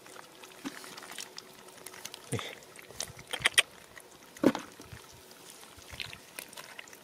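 Hands digging and breaking into cracked, drying mud with wet mud beneath: scattered short crunches and wet squelches, the loudest about four and a half seconds in.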